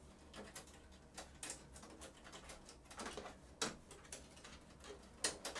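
Scattered faint clicks and ticks of cable connectors being pulled out of their sockets on a printer's circuit board, with sharper clicks about three and a half seconds in and twice near the end.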